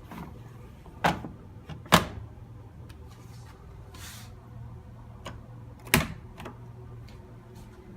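Sharp plastic-and-metal clicks and knocks from a washing machine being handled, its lid, door or controls worked. The loudest come about one, two and six seconds in, over a low steady hum that stops about seven seconds in.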